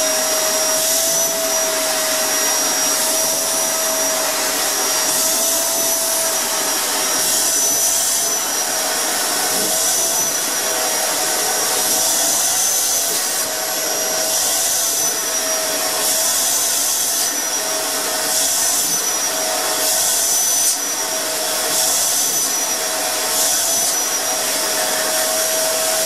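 Dirt Devil canister vacuum cleaner running steadily as it sucks at a cat's fur. Its motor tone wavers slightly, and the airflow hiss surges briefly every second or two.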